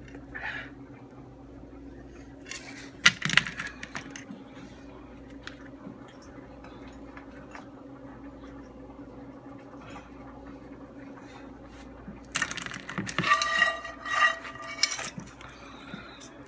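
Nonstick frying pan handled on a kitchen counter: a sharp clatter about three seconds in, then quieter handling, and louder knocks with a pitched, wavering squeak near the end, over a steady low hum.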